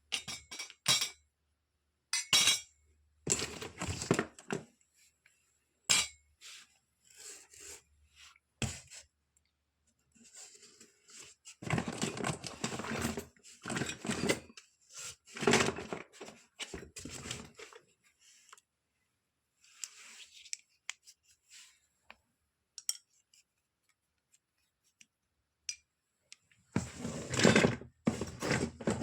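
Small toy kitchen pieces clinking, tapping and rattling as they are handled and set down, in short irregular bursts with silent gaps between them.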